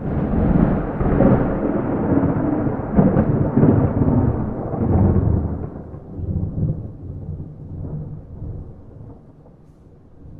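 Thunder with no rain: a clap that starts abruptly into a loud crackling rumble for about five seconds, then dies away into a low rolling rumble.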